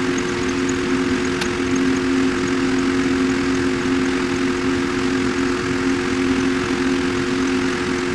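Steady, loud drone of running machinery with two constant hum tones, like a big fan or motor, unchanging throughout; a faint click about a second and a half in.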